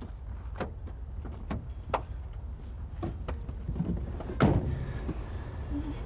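A person getting into a car: a few sharp clicks and knocks, then the car door shut with one loud thump about four and a half seconds in, over a low steady rumble.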